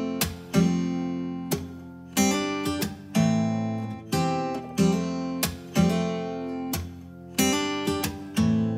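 Background music: an acoustic guitar strumming chords, each strum ringing out and fading before the next.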